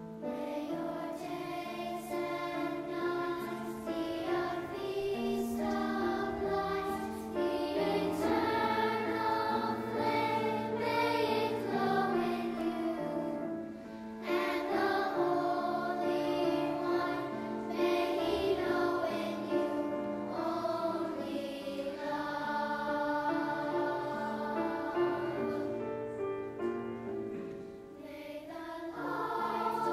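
Girls' children's choir singing a choral piece in several parts, with piano accompaniment.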